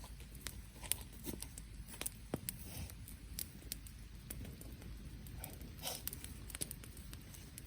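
Wood fire crackling, with irregular sharp pops and snaps scattered through it.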